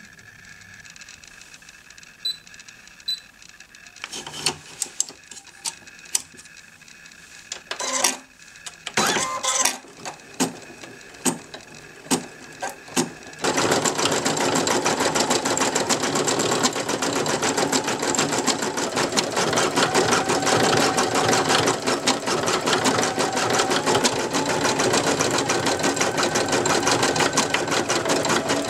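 Brother computerized embroidery machine: first a few separate clicks and knocks about a second apart, then from about halfway it starts stitching, a loud, fast, steady rattle of the needle.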